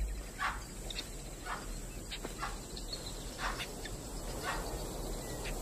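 Alarm calls from the impala and baboon sentries that have spotted the lions: short, sharp barks or snorts repeated irregularly, roughly two a second, warning that a predator is close.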